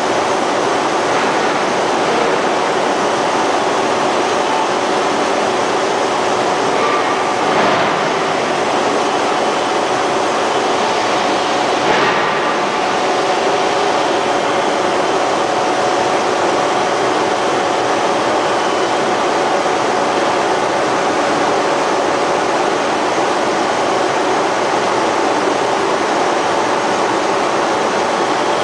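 Radial-axial ring rolling mill rolling a red-hot steel ring: steady, loud mechanical noise with faint steady hum tones underneath. A brief knock comes about seven seconds in and a sharper one about twelve seconds in.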